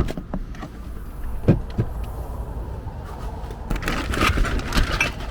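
A sharp click, two knocks about a second and a half in, then a second or so of clattering near the end, like hard objects being picked up and set down.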